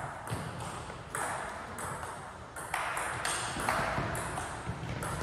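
Table tennis rally: the plastic ball clicks sharply off the rubber-faced bats and the table in quick alternation, about two hits a second.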